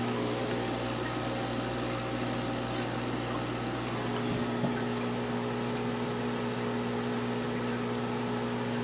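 Aquarium pump humming steadily over water bubbling from the air line in the tank, with one light knock about halfway through.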